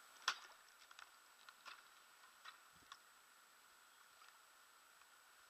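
Near silence broken by a few faint, sharp clicks and ticks: one louder click about a quarter second in, then four or five softer ones over the next few seconds, over a faint steady high hiss.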